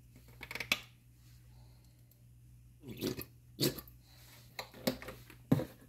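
A plastic squeeze bottle of ranch dressing being squeezed, giving a few short squirts and clicks.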